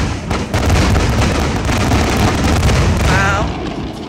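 Fireworks display: a rapid barrage of bangs and crackling over a low rumble, dying down near the end.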